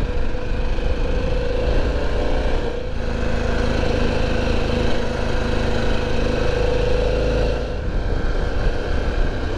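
Motorcycle engine running steadily at road speed, with wind rushing over the microphone. The sound dips briefly about three seconds in and again near eight seconds.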